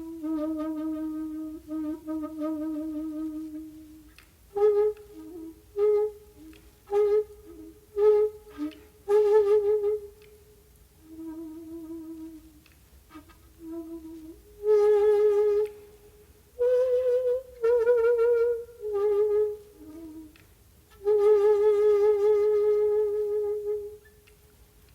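Solo shakuhachi (Japanese end-blown bamboo flute) playing a slow, breathy phrase: a long low note, a run of short separated notes with pauses, then longer notes with a wavering pitch, the last held for about three seconds before it stops near the end.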